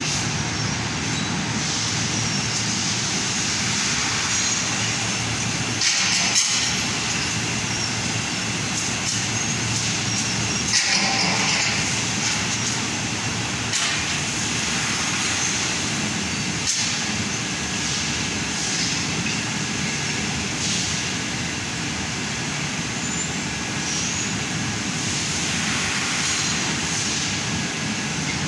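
Laser tube-cutting machine running steadily in a metal workshop, with short bursts of hiss and a few sharp metallic knocks every few seconds.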